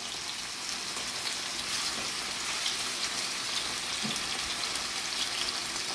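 Seasoned boneless, skinless chicken thighs frying in hot oil in a skillet: a steady sizzle with small crackles.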